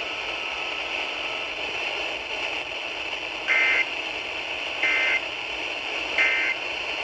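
Emergency Alert System end-of-message data bursts: three short two-tone digital squawks about 1.3 seconds apart, over steady radio hiss.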